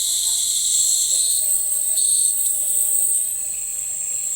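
Nebulizer running with a steady high-pitched hiss, which eases slightly near the end.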